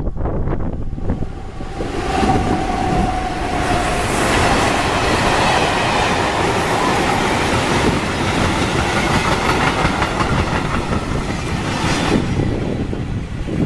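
Passing train of vintage passenger coaches hauled by electric locomotive E499.085: a loud, steady rush and clatter of wheels on rails, with a faint whine about two seconds in. It fades away after the last coach passes, near the end.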